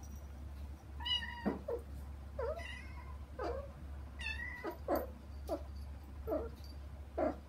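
Kittens meowing: three long, high-pitched cries about one, two and a half and four seconds in, among shorter, lower meows coming roughly once a second.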